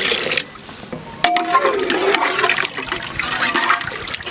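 Water pouring into a metal pot of masala stops shortly in. About a second later a ladle clinks against the pot and starts stirring the watery mixture, which sloshes steadily.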